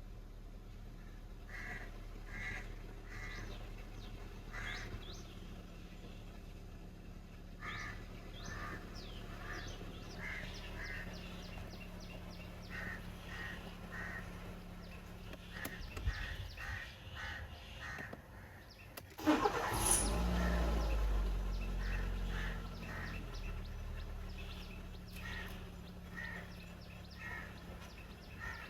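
A 2008 Nissan Sunny engine is cranked and starts about 19 seconds in, after its faulty crankshaft position sensor (fault P0335) was replaced. It runs up louder for a few seconds, then settles to a steady idle. Birds chirp over a low steady hum throughout.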